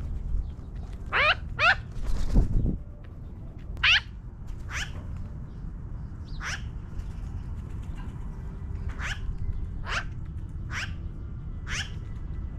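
Magpie calling: short, sharp calls that drop in pitch, a loud pair just after the start and then one roughly every second. A brief noisy rustle sounds between the first calls.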